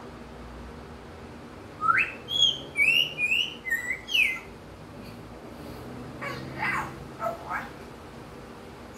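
African grey parrot whistling a quick run of about six loud notes that glide up and down, mimicking wild-bird calls, followed a couple of seconds later by a few softer, lower calls.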